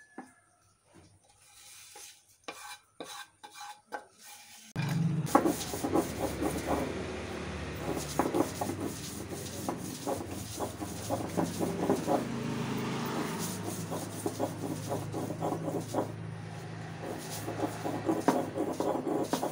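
Stone roller of an ammi, a flat Kerala grinding stone, rolled and rubbed back and forth over the slab, grinding a dry roasted mix with repeated gritty scraping strokes. It starts about five seconds in, after a few faint knocks, over a low steady hum.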